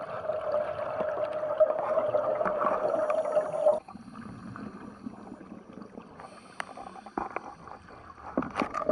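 Underwater sound of scuba divers breathing through regulators, with gurgling bubbles. A steady tone with noise cuts off abruptly about four seconds in, leaving quieter bubbling and scattered clicks.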